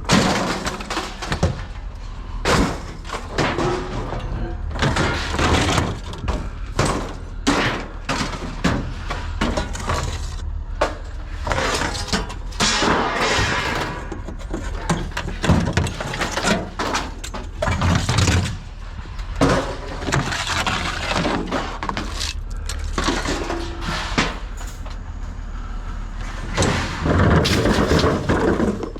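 Scrap metal clattering and crashing as it is handled and thrown, many knocks in quick, irregular succession, some ringing briefly.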